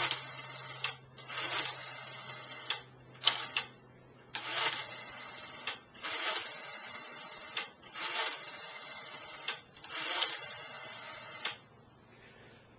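Rotary dial of a 1959 Western Electric three-slot payphone being dialled: about seven digits in turn, each a click as the dial is pulled round, then a ratcheting whirr of about a second as it spins back, ending in a click, with short pauses between digits.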